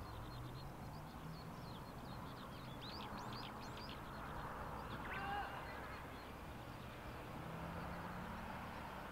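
Outdoor background noise with birds chirping in quick short notes for the first few seconds, and a single brief louder call about five seconds in.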